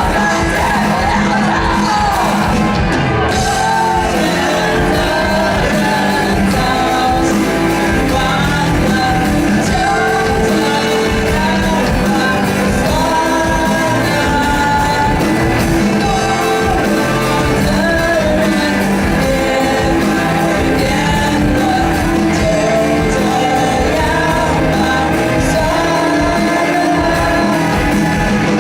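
Live rock band playing a song with a lead singer; loud and continuous.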